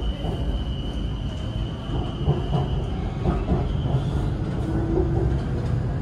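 BTS Skytrain electric train running: a steady low rumble, with a high steady whine that fades out about halfway through and a few short squeals and knocks after it.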